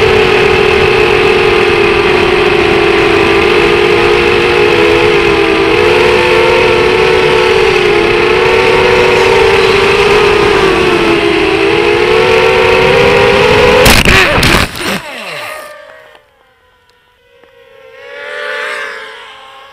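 FPV racing quadcopter's brushless motors and propellers whining steadily at high throttle, the pitch wavering with the throttle, heard from a camera mounted on the drone. About fourteen seconds in, a burst of clattering impacts marks the crash into tall grass. The motors then wind down, and a faint whir swells and fades near the end.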